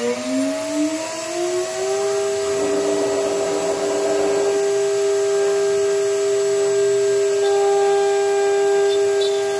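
CNC router spindle spinning up, its whine rising in pitch over the first two seconds, then running steady at full speed, with a brief hiss in the middle.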